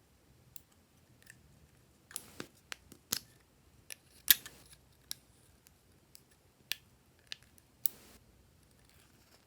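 Glossy slime being worked by hand, giving an irregular run of sharp clicks and snaps, with the loudest about four seconds in.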